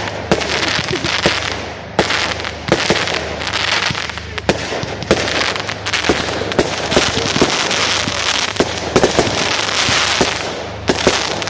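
Fireworks display: many sharp bangs in quick succession over a continuous hiss, with a brief lull about two seconds in.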